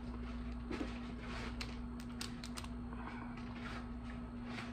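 Steamed Maryland blue crab being pulled apart by hand: a run of short cracks and snaps of shell, several in quick succession around the middle, over a steady low hum.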